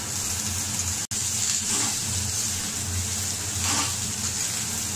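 Shredded cabbage, carrot and capsicum sizzling steadily as they stir-fry in hot oil in a kadhai, with faint scrapes of the spatula. The sound cuts out for an instant about a second in.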